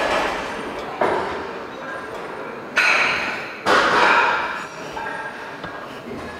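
A set of lying leg curls being worked: four sudden strained bursts about a second apart, the loudest two near the middle, then quieter as the set ends.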